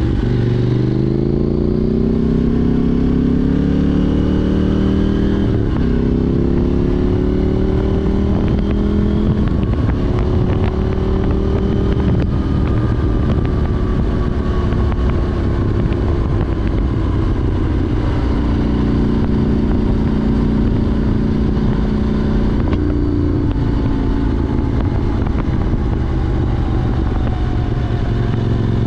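KTM 790 Duke's parallel-twin engine through an Arrow Race Tech exhaust with de-cat pipe, the bike accelerating hard with the engine note climbing, a gear change about six seconds in, then climbing again. After about twelve seconds it settles into a cruise with the note slowly falling.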